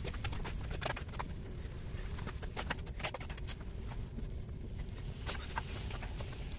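Wooden spatula clicking and scraping against a wok as sliced radish and squash are stir-fried, irregular small clicks over a steady low rumble.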